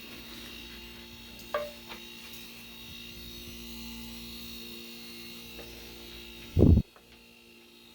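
Two refrigerator compressors, run together as a homemade air compressor, humming steadily with several steady tones. A short squeak comes about a second and a half in, and a loud thump near the end, after which the hum is fainter.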